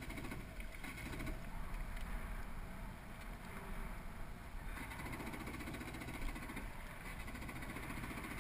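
Jet ski running across open water: a steady, muffled low rumble of engine, water and wind.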